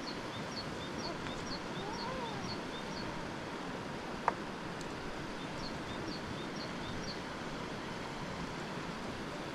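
Steady rushing outdoor background noise with a small animal giving short, high chirps at about two or three a second, in two runs. A single sharp click about four seconds in.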